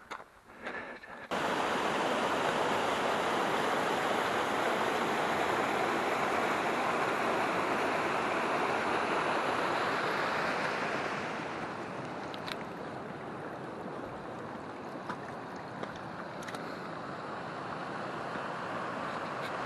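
Rushing water of a mountain stream running beside a rocky trail. It comes in suddenly a little over a second in and grows quieter about halfway through.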